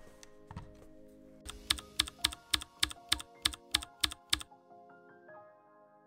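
A quick run of about eleven sharp, evenly spaced clicks, nearly four a second, over soft background music, stopping suddenly about four and a half seconds in.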